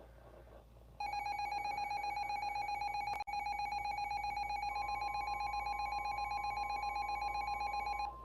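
Emergency Alert System attention signal: a harsh, fluttering two-tone alarm that starts about a second in and cuts off after roughly seven seconds, with a brief dropout about two seconds after it starts. Partway through, a steady, higher single alert tone joins it and keeps sounding after the two-tone stops.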